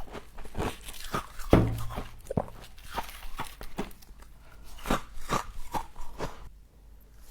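Close-up crunching and chewing of frost, a quick run of sharp crackling crunches with a heavier bite about a second and a half in, stopping near the end.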